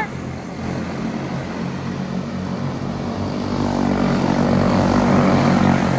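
Several quarter midget race cars with single-cylinder Briggs & Stratton Animal engines running at racing speed around a paved oval, making a steady engine drone. The drone grows louder from about four seconds in as the pack comes past.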